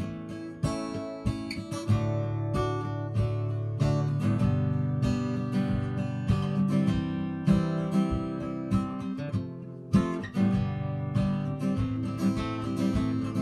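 Cutaway acoustic guitar strummed in chords, a steady run of strokes, with one louder accented strum about ten seconds in.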